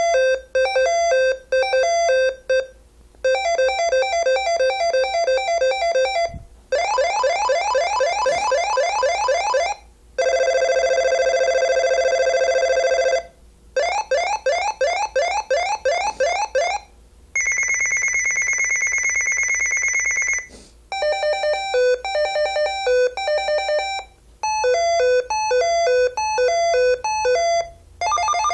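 Midland GXT1000 walkie-talkie playing its call tones one after another through its small speaker as the call-tone menu is scrolled. Each is a short electronic beep melody of about three seconds, followed by a brief pause and a different pattern. Some are rapid trills, one is a steady buzzing two-tone note about ten seconds in, and one is a single high steady tone a little past halfway.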